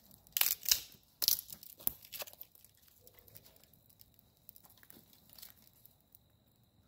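Dry twigs and leaf litter crunching and snapping: a few loud bursts in the first two seconds, then faint scattered crackles.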